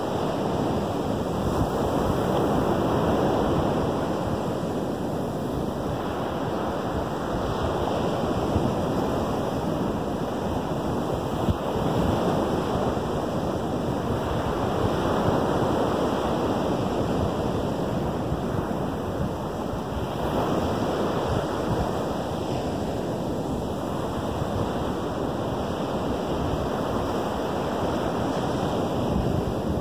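Lake Michigan surf breaking on a sandy beach: a steady wash of waves that swells and eases every few seconds.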